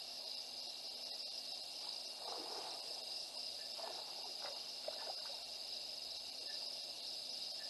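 Steady night chorus of insects, a continuous high trill, with a few brief faint mid-pitched sounds about two seconds in and again around four to five seconds.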